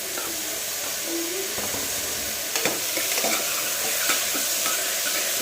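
Chopped onion and tomato sizzling in hot oil in a pressure cooker, stirred, with a few light knocks of the utensil against the pot in the second half.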